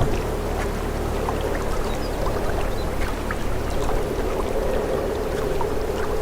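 Fast mountain river water rushing past, a steady churning with many small splashes through it.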